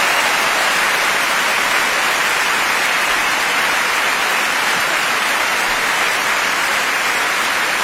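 Large audience applauding steadily and loudly.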